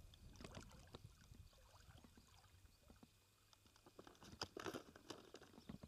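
Faint scattered clicks and rustles of hands handling a caught bass and fishing gear, thickest about four to five seconds in.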